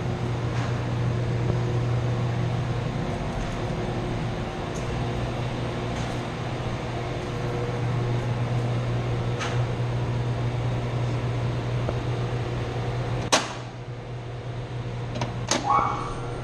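Chilled-water pump motor running with a steady low hum. A sharp metallic click about 13 seconds in, after which the running is a little quieter, and another click near the end.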